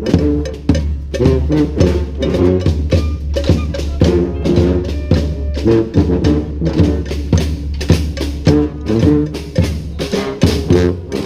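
A brass street band plays a cumbia: horns hold and move through chords over a steady beat of bass drum, snare and hand percussion.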